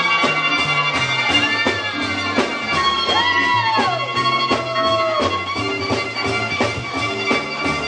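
Swing jazz band playing, with a violin taking the solo through a microphone: notes that swoop up and fall away over a bass line stepping from note to note and steady drum strokes.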